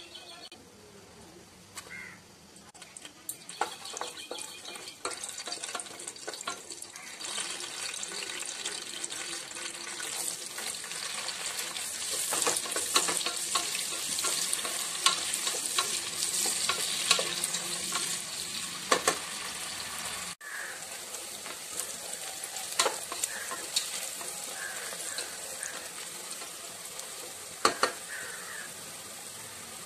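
Whole spices and then sliced onions sizzling in hot oil in an aluminium pot, with the scattered clicks of stirring. The sizzle builds over the first few seconds and is loudest around the middle, with a brief dropout about two-thirds through.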